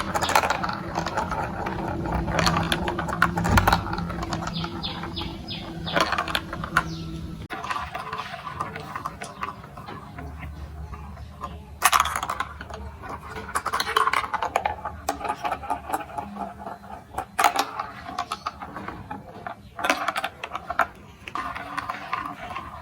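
Clicking and clacking of plastic marble-run building blocks: dense rapid clicks at first, then, after an abrupt change about seven seconds in, sparser clicks with a few louder clacks.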